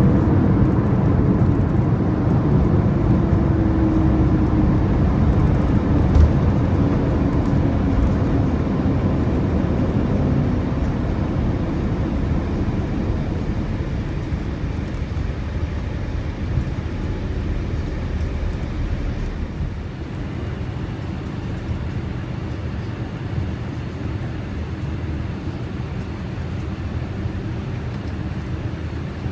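Boeing 787-8 engine and rumble noise heard inside the cabin, fading steadily as the jet slows, with a falling tone over the first ten seconds and a single knock about six seconds in.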